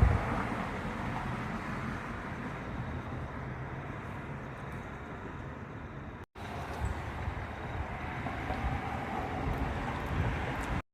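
Thunderstorm wind buffeting the microphone as a low, gusty rumble that cuts out for an instant about six seconds in, then resumes.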